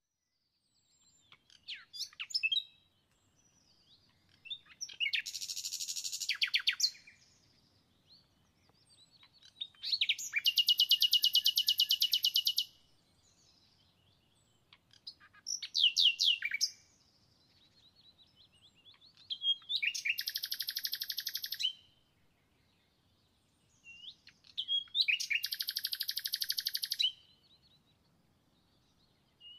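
A small songbird singing: six separate phrases of chirps and fast high trills, each one to three seconds long, coming about every four to five seconds with short quiet gaps between.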